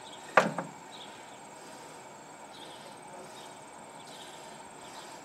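A steady, faint, high-pitched insect drone in the background, with one brief sharp sound about half a second in.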